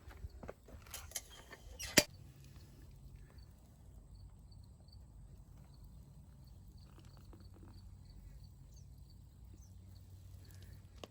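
A few sharp knocks, the loudest about two seconds in, then a faint low steady hum.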